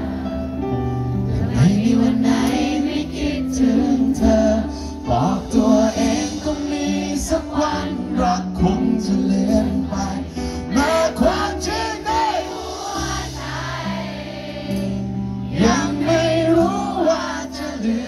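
A band playing a slow pop song live, with held chords under a sung melody that comes in phrases.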